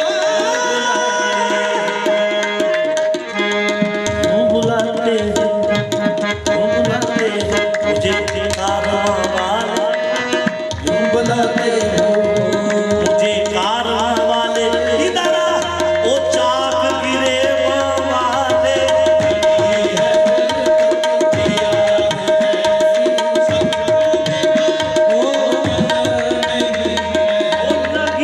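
Live qawwali music: voices singing to harmonium with tabla drumming, and one steady note held throughout.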